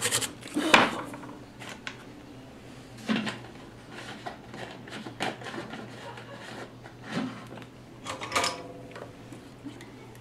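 Workbench handling noise: a printed circuit board and a soldering iron being moved and set down on a wooden bench, a scatter of light clicks and knocks over a steady low hum.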